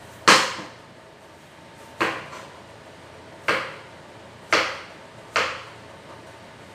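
Five sharp chops of a knife on a cutting board, unevenly spaced about one to one and a half seconds apart, the first the loudest.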